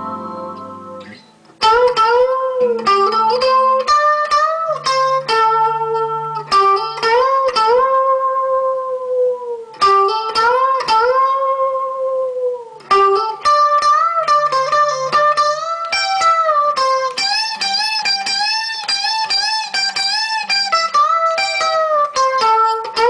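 Electric guitar (a black Stratocaster through a small practice amp) playing a solo melody. A chord rings out and fades in the first second, then after a brief gap a single-note line begins, full of string bends and wide vibrato on held notes.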